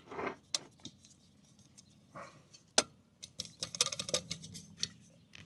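Small items of gear being handled by hand: scattered light clicks and brief rustles, with one sharp click about halfway through and a quick run of clicks just after it.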